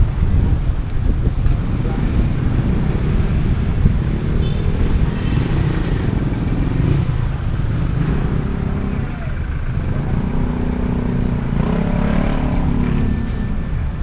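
Motor traffic on a busy city street: motorcycles and cars running past under a steady rumble, with engines passing close about a third of the way in and again near the end.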